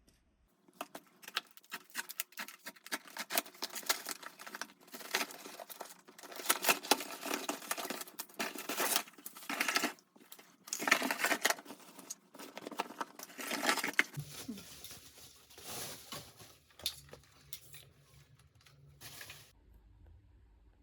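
Packaging of a portable car vacuum cleaner being opened and handled: cardboard and plastic rustling, crinkling and tearing, with scattered clicks and knocks. The handling is dense at first, then thins out to occasional rustles and stops near the end.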